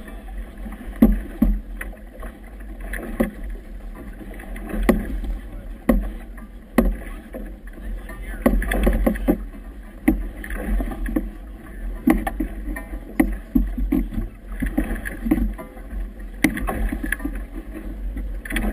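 Motorboat moving through choppy water in strong wind: a steady low wind rumble on the camera's microphone, with irregular slaps and knocks as waves hit the hull and gear flaps.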